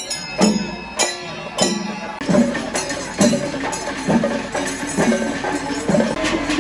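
Kerala chenda melam: chenda drums beaten with ilathalam hand cymbals ringing over them, in a steady beat of about one stroke every 0.6 s that turns into a denser, busier beat about two seconds in.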